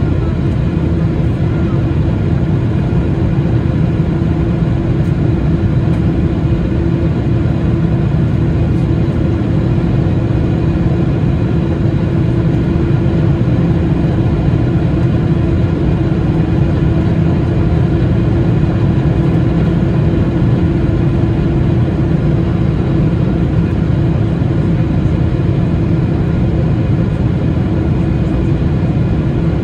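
Steady cabin noise of a Boeing 777-300ER in its climb after takeoff, heard from a seat by the wing: the deep drone of the GE90-115B turbofans and the rush of air, with a steady hum held at one pitch.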